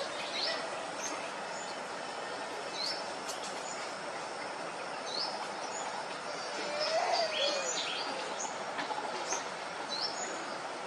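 Wild birds chirping in short, scattered high calls over a steady hiss of forest background noise. A brief lower call rises slightly in level about seven seconds in.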